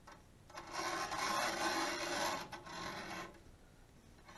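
A dry metallic rasping rub, starting about half a second in and stopping a little after three seconds: the CNC machine's lead screw being turned by hand in its nut, running the carriage along the aluminium rail.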